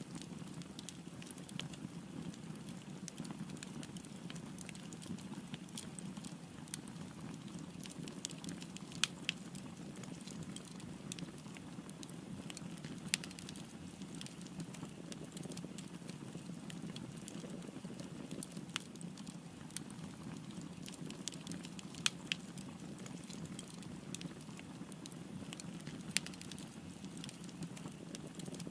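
Wood fire burning with a steady low rumble of flames and frequent sharp crackles and pops, a handful of them louder, such as about nine, thirteen, twenty-two and twenty-six seconds in.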